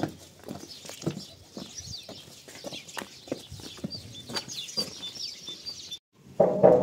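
Footsteps on a gravelly dirt path, about two a second, with birds chirping around them. Near the end, after a brief gap, a sudden loud pitched sound begins.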